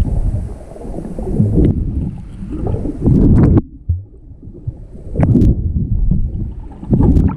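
Muffled sloshing and rushing of seawater heard from a camera held underwater while swimming, with several louder splashing surges.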